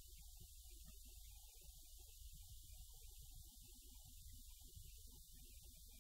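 Near silence: a faint steady low rumble with hiss.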